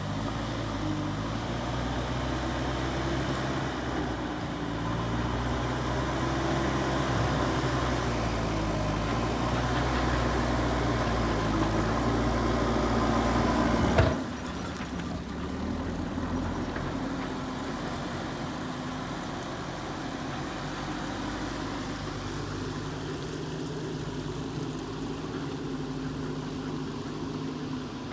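Diesel engine of a JCB construction machine running under work, building gradually louder, then a sharp click about halfway after which the engine sound is quieter and steadier.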